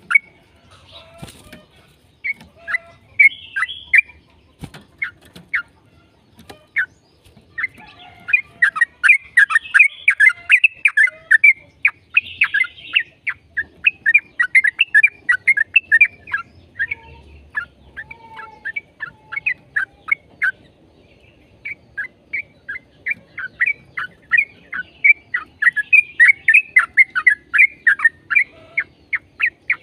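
Yellow-vented bulbul (trucukan) singing long, rapid runs of short, sharp chirping notes, broken by a few brief pauses.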